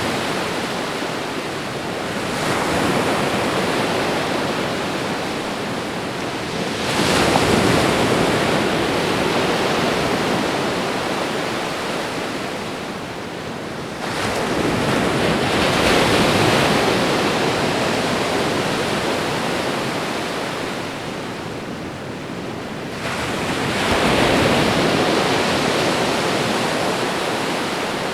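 Ocean waves breaking and washing up the shore, one surge every seven to nine seconds, each coming in suddenly and fading away slowly.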